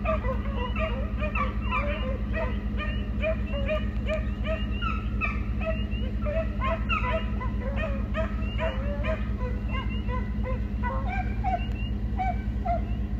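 A pack of hounds baying in many overlapping voices as they run a coyote's trail, over a steady low hum.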